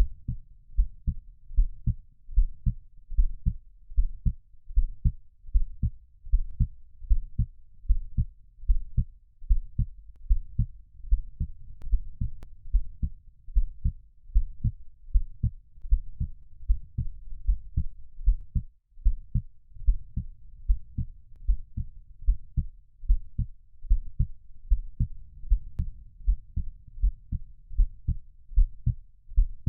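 Heartbeat sound: a steady, even rhythm of low, paired lub-dub thumps, with a faint low murmur between the beats.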